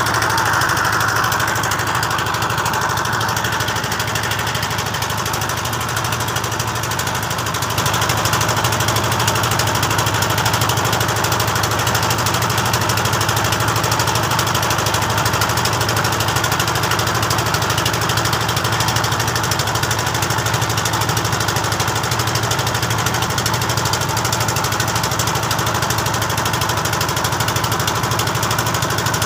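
Engine of a wooden river boat running steadily under way, a constant hum that drops a little a few seconds in and comes back slightly louder about eight seconds in.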